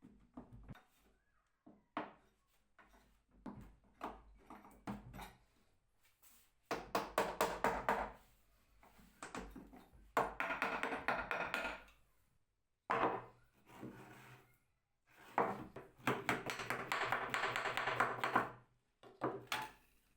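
Hand work on wood: scattered knocks, then three runs of rapid rasping strokes a few seconds each, with a few more knocks near the end.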